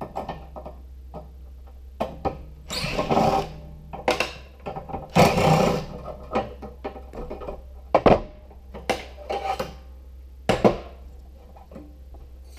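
Sheet-metal parts of a gas stove being handled during disassembly: scattered metal clanks and knocks, with two longer scraping rattles a few seconds in.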